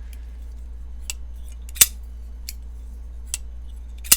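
Sharp metallic clicks from a reassembled folding knife being worked by hand while its blade is checked for play: five separate clicks, the loudest a little under two seconds in and at the very end.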